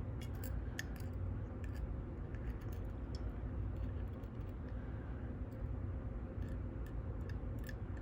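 Scattered small metal clicks and taps of tweezers and tools on the pins, springs and housing of a U-Shin Showa NX lock being taken apart, over a steady low hum.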